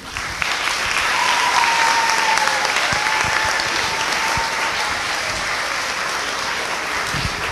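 Audience of schoolchildren and adults applauding steadily after a speech, the clapping cutting off suddenly at the end.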